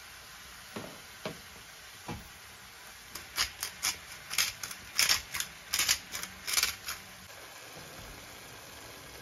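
A hand-held spice grinder twisted over a frying pan, giving a run of sharp, crisp ratcheting clicks at two or three a second for about four seconds. Before it come three soft knocks as chopped tomatoes are tipped into the pan from a bowl.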